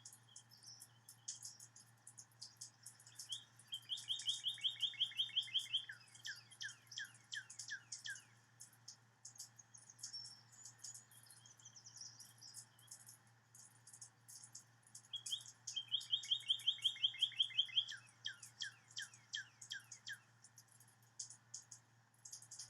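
Recorded bird song, heard twice about twelve seconds apart: each song is a fast trill of about two seconds, then a run of slower notes that slur downward. Thin, high chirps tick throughout.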